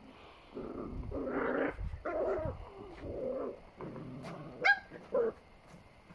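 Pit bull puppies growling as they tug at a rope toy, followed by two or three short, sharp yips about four to five seconds in.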